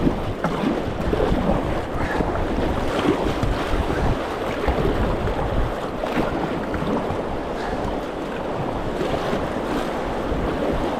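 Whitewater rushing around a kayak on a river rapid, a steady dense roar of water, with wind buffeting the microphone.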